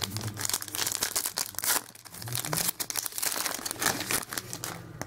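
Trading card pack wrapper crinkling and tearing as it is opened by hand and the cards are pulled out: a dense, irregular run of crackles.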